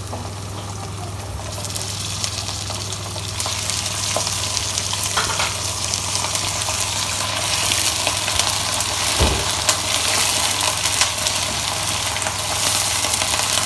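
Raw chicken pieces sizzling in hot oil with browned onions in a nonstick frying pan, the sizzle building up over the first few seconds as the chicken goes in. A slotted spatula stirring through the pieces clicks against the pan, with a sharper knock about nine seconds in, over a steady low hum.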